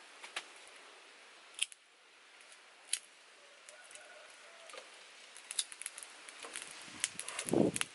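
Knife cutting sugar cane by hand: scattered sharp clicks and chops, more of them near the end. A duller thump, the loudest sound, comes near the end as pieces go into the pot.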